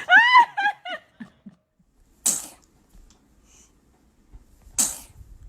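A baby squeals in a high voice that rises and falls, then sneezes twice, two short sharp sneezes about two and a half seconds apart.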